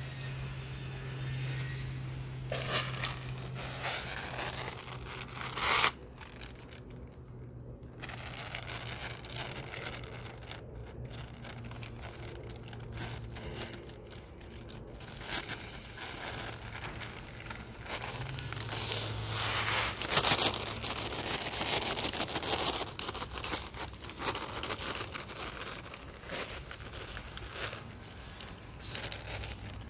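Plastic fertilizer bag crinkling and rustling in irregular bursts as bone meal is shaken out and scattered over a garden bed, with a faint steady low hum underneath.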